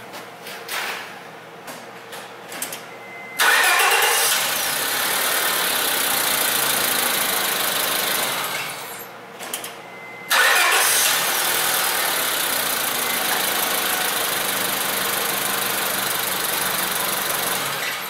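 A 2004 Honda Civic's 1.7-litre four-cylinder engine catches and starts about three seconds in, with a brief rise in revs, then runs for about five seconds before it stops. It starts again about ten seconds in and runs steadily until shortly before the end. The crank-no-start fault is cured and the engine now starts and runs.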